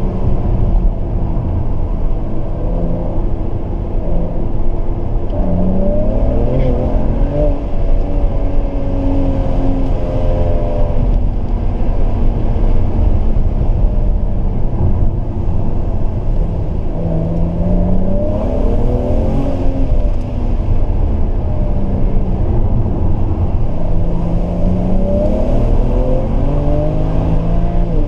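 BMW 335i's turbocharged 3.0-litre straight-six, fitted with an AC Schnitzer rear silencer, heard from inside the cabin under hard acceleration on the road. The engine note climbs steeply through the revs three times, about five seconds in, around seventeen seconds and around twenty-four seconds, and settles back between pulls, over steady road rumble.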